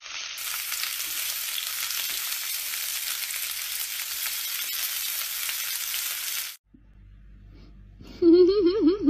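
Steady sizzle of food frying in a pan, a sound effect set to match the cat lying curled in a frying pan on the hob; it cuts off suddenly about six and a half seconds in. Near the end comes a short, loud, wavering call from a cat.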